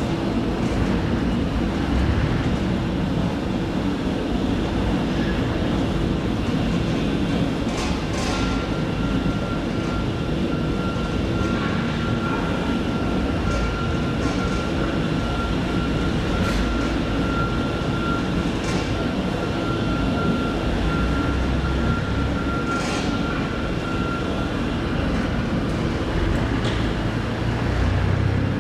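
A 300-gallon stainless steel high-shear liquefier running, its 60 hp side-mounted motor turning the bottom impeller with a steady, dense mechanical noise. A faint steady high whine sits over it through much of the middle.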